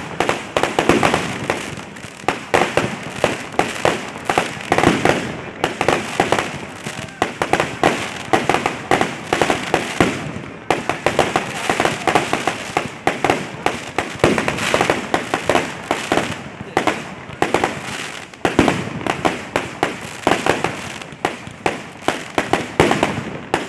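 Fireworks going off in rapid succession: a dense run of sharp bangs and crackles, with a couple of brief lulls.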